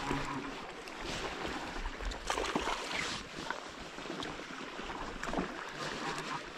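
Small river flowing past the bank, a steady wash of water, with wind on the microphone and a few faint clicks about two to three seconds in and again near the end.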